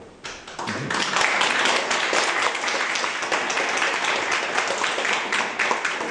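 Audience applauding: the clapping starts right away, swells to full within about a second, and thins out near the end.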